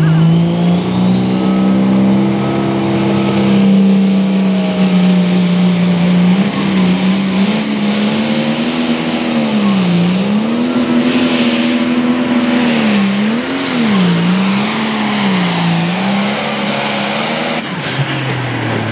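Limited Pro Stock pulling tractor's turbocharged diesel engine at full throttle under load down the track, with a rising turbo whistle as it spools up. Later in the run the engine speed dips and recovers several times as the sled bears down. Near the end the throttle is let off and the engine note and turbo whistle fall away.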